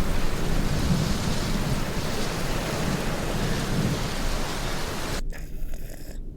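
Apocalypse ambience sound effect: a dense, rain-like hiss over a deep, continuous rumble, like a heavy thunderstorm. About five seconds in, the hiss cuts off abruptly, leaving only a muffled low rumble.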